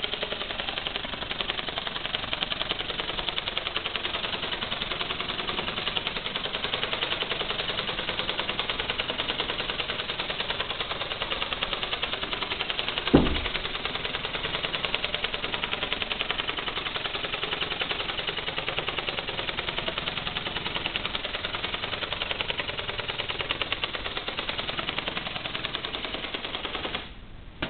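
DelFly II ornithopter in flight, its flapping wings and small drive motor making a fast, even clattering buzz. There is one thump about halfway through, and the sound cuts out just before the end.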